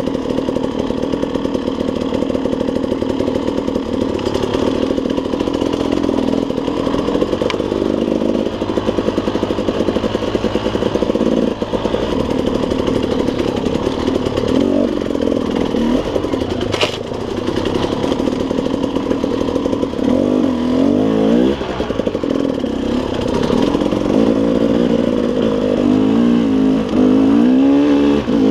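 KTM 300 two-stroke dirt bike engine running under load on rough trail, with its pitch swinging up and down repeatedly in the last third as the throttle is worked. A single sharp knock sounds about two-thirds of the way through.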